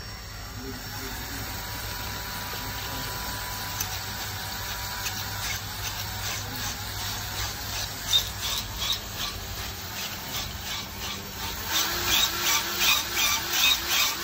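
Battery drill spinning a tube brush on an extension rod inside a heat-exchanger tube, cleaning and rounding the tube bore in the tube sheet before a plug is fitted. Near the end the brush is worked back and forth, and the sound surges about twice a second.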